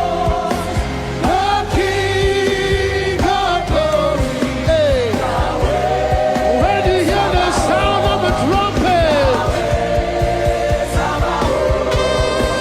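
Live gospel worship music: a full band playing under a lead melody that slides and bends between notes.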